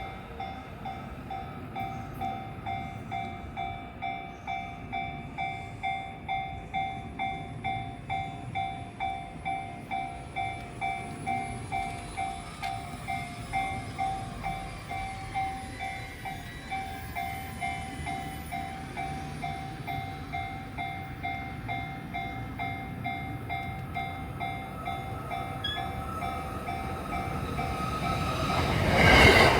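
Japanese level-crossing warning bell ringing steadily at about two strikes a second. Near the end an electric train arrives close by, quickly growing loud.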